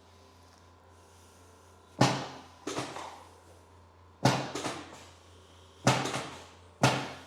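A run of sharp thumps, about six in five seconds and unevenly spaced, some coming in quick pairs, each dying away fast.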